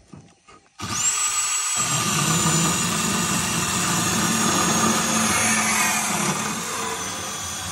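Battery-powered saw starting up about a second in and cutting through thick copper pipe, a steady high motor whine over the rasp of the blade in the metal.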